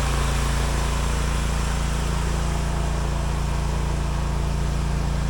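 Gas engine of a hydraulic log splitter running steadily at an even idle, with a constant low hum.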